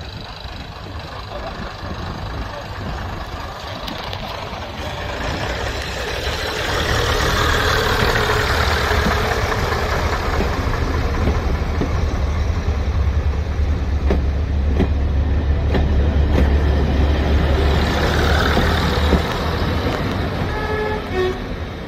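Class 101 diesel multiple unit passing close by, its underfloor diesel engines giving a deep, loud rumble. The rumble builds over the first several seconds, holds, then drops away about 19 seconds in as the last carriage goes past.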